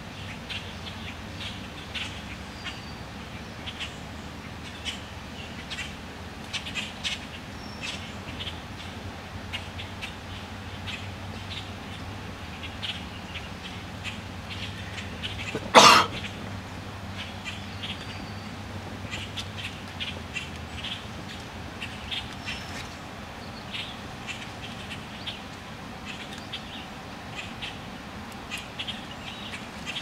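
A juvenile green heron gives one loud, harsh squawk about halfway through. Around it come frequent faint ticks and a few thin, high whistles.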